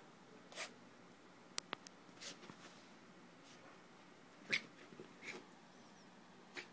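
Shiba Inu puppy playing with an ice cube on carpet: several short puffs of breath from its nose and mouth, the loudest about four and a half seconds in, and a quick run of three small sharp clicks about a second and a half in.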